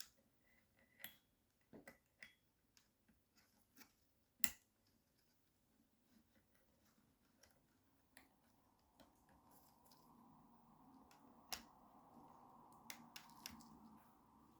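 Quiet handling of small parts while a red wire is connected to the plus terminal of a replacement vacuum-cleaner motor: scattered light clicks and taps, sharpest about four and a half seconds in and again near twelve seconds. A faint rustle of handling starts about nine seconds in.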